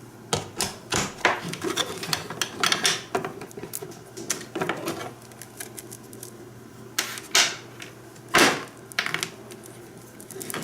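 Hands handling a plastic AC adapter, its cable and packaging: a quick, irregular run of light plastic clicks, taps and rustles, with a couple of longer rustling bursts near the end.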